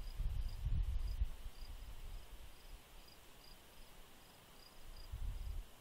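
A cricket chirping steadily, short high chirps at about two to three a second, over outdoor ambience. Bursts of low rumble come and go, loudest in the first second and again near the end.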